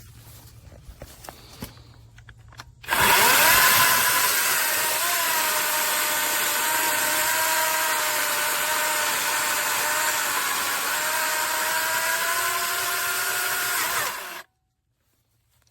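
Cordless brushless electric chainsaw spinning up with a quick rising whine about three seconds in, then running at a steady high whine whose pitch sags slightly now and then. It cuts off abruptly near the end.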